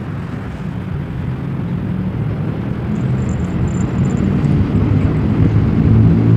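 Low rumble of a passing vehicle, growing steadily louder as it approaches.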